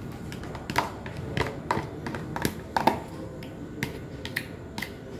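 Metal spoon clicking and scraping against plastic food packaging as chow mein is scooped out onto a plate: a string of irregular sharp clicks.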